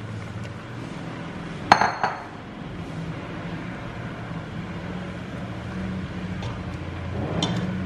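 A spatula knocking against a metal cooking pot as jaggery is scraped off it into simmering milk: one sharp clink about two seconds in, a softer one just after, and light taps near the end, over a steady low hum.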